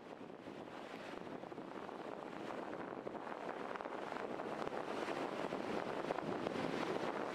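Steady beach ambience of wind and surf, a smooth rushing noise that slowly grows louder.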